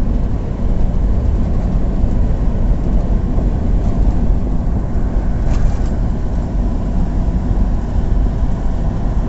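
Steady road and wind noise of a car driving fast on a highway, heard from inside the cabin as a continuous low rumble.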